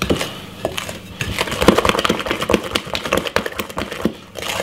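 Wooden spoon beating sponge cake batter in a glass mixing bowl: a quick, irregular run of taps and clicks of the spoon against the glass.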